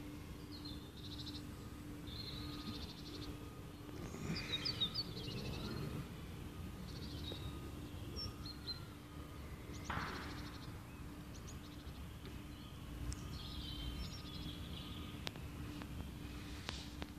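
Small birds chirping on and off over a steady low rumble of outdoor background noise.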